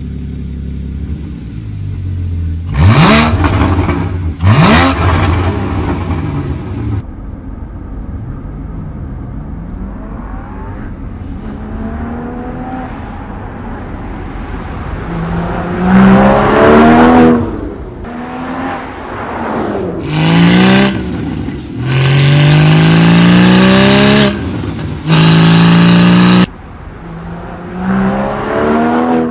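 Porsche Cayman GT4's 3.8-litre flat-six engine and exhaust under hard acceleration, revving up again and again, each time climbing in pitch and then dropping back. There are two short, sharp revs near the start and several longer climbs in the second half.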